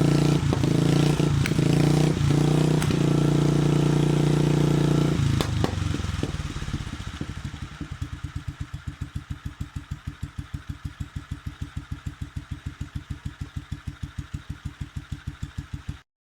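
BMW R25/2 single-cylinder four-stroke motorcycle engine running at raised revs, then settling about five seconds in to a slow idle with distinct, evenly spaced exhaust beats of about five a second. The sound cuts off abruptly near the end.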